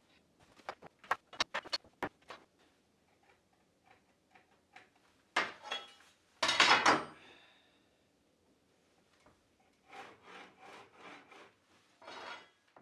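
Rubbing and scraping on a plywood floor as a template panel and a triangle square are handled and laid out. Scattered light taps and clicks at first, two louder sliding scrapes in the middle, then a run of short quick strokes near the end.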